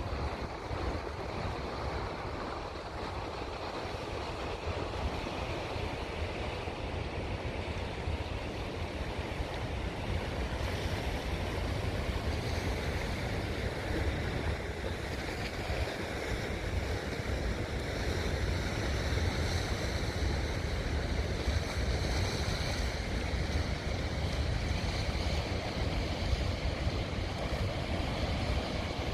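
Surf washing against a rocky shore, with wind buffeting the microphone in a steady low rumble.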